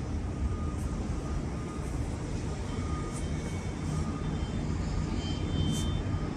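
Wind buffeting the phone's microphone in the open air high up, a steady, unsteady-edged low rumble.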